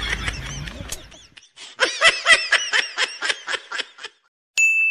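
A burst of laughter made of rapid, evenly repeated 'ha' notes lasting about two seconds. Near the end it is followed by a sharp ding that holds a high ringing tone.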